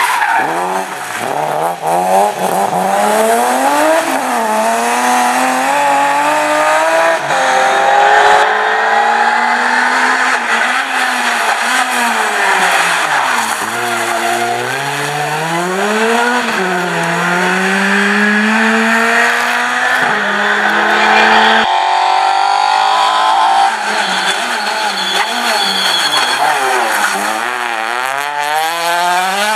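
Rally cars passing one after another, first a BMW E36 3 Series, then a Ford Fiesta, then a Citroën C2, their engines revving hard, the pitch climbing and falling again and again through gear changes and lifts.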